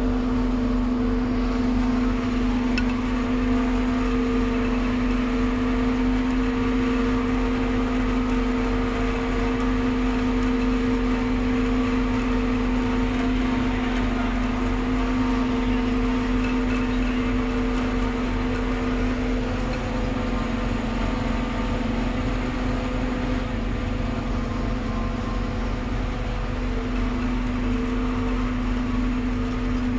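Forage harvester cutting and chopping standing maize for silage. The engine and cutting gear run steadily under load, with a constant droning hum, heard from inside the cab.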